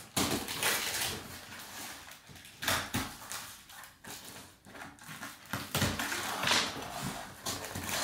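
Cardboard shipping box being opened and handled: irregular bursts of rustling and scraping cardboard, a few of them louder.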